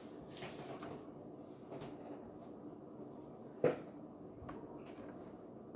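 A single sharp knock about two-thirds of the way in, with a few fainter clicks, over faint room noise.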